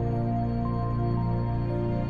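Slow, ambient background music over the end credits: a steady low held note under soft sustained chords, with a high note entering about two-thirds of a second in and stepping down a little after a second.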